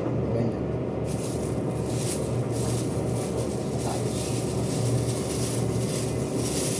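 A motor running with a steady hum and rumble; a hiss rises over it about a second in.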